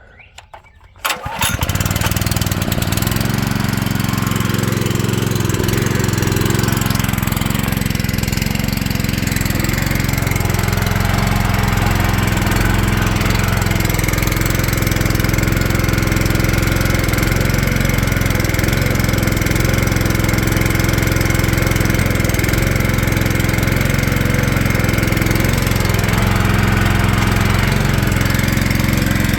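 An engine starts about a second in and runs steadily at idle, then cuts off abruptly near the end.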